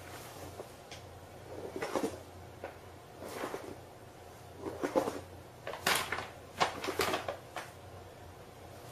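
A series of short knocks and clatters, coming in quick succession in the second half, the loudest about five and six to seven seconds in.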